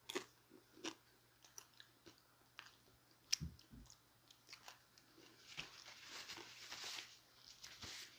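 Faint, irregular chewing of a chicken taco: scattered short wet clicks and smacks, with a longer soft spell of chewing noise about six to seven seconds in.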